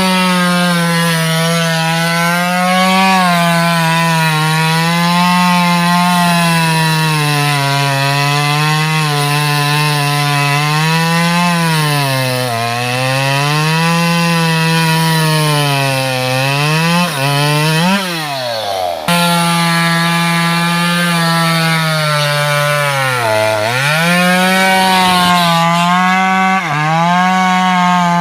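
Two-stroke top-handle chainsaw running at high revs while cutting teak, its pitch sagging and recovering again and again as the chain bites into the wood under load. The sound breaks off abruptly about two-thirds of the way through and picks up again straight away.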